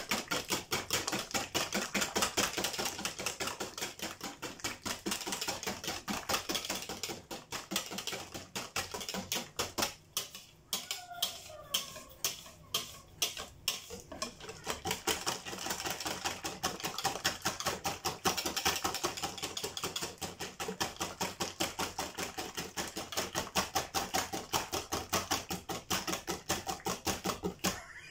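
Wire whisk beating crêpe batter in a bowl, its wires clicking rapidly and rhythmically against the bowl, with a short slackening about ten seconds in. The batter is being whisked smooth to get rid of lumps.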